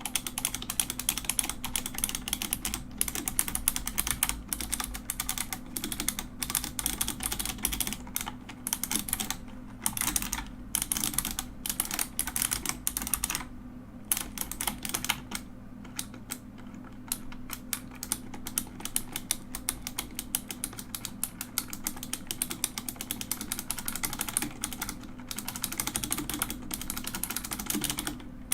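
Mechanical keyboard being typed on: rapid, continuous clacking keystrokes, with a couple of brief pauses about halfway through.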